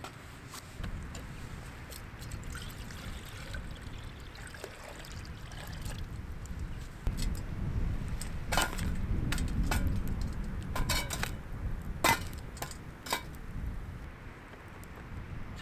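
Wind rumbling on the microphone. In the second half come several sharp metallic clinks as a lidded metal pot on a wire handle is set down onto a small folding metal wood-burning stove.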